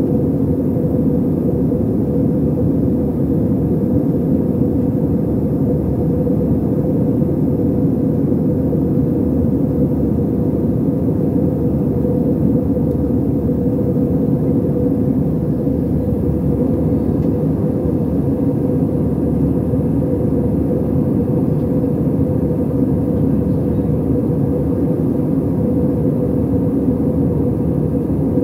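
Steady cabin noise of an airliner in flight: jet engines and rushing airflow heard from inside the cabin as an even, loud rumble with a steady hum.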